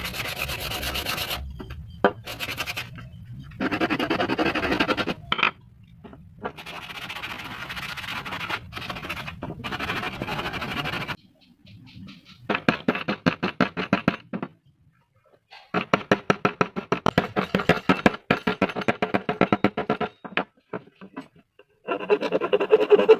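Wood being worked by hand: bursts of scraping and rasping, then several runs of quick back-and-forth strokes, several a second, like a file, rasp or saw on wood.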